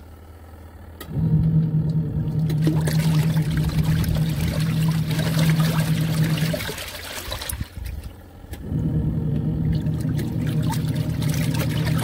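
Kuppet portable twin-tub washing machine agitating a rinse load: a steady motor hum with water churning and sloshing in the tub. It runs for about five seconds, stops for about two, then starts again, as the agitator pauses and reverses.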